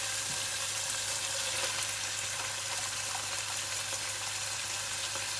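Chicken pieces frying in oil and ginger-garlic paste in a non-stick pot, a steady sizzling hiss, with a constant low hum underneath.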